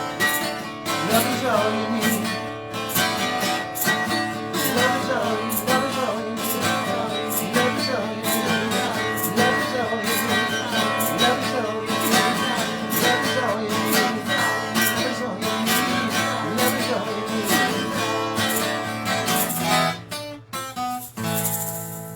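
Acoustic guitar strumming chords in a steady rhythm as an instrumental song outro. Near the end it closes with a few quick strums and a last chord left ringing.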